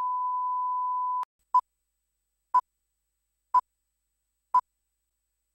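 Line-up reference tone of a video tape leader: a steady pure tone with the colour bars, cutting off sharply after about a second, then four short countdown beeps of the same pitch, one a second.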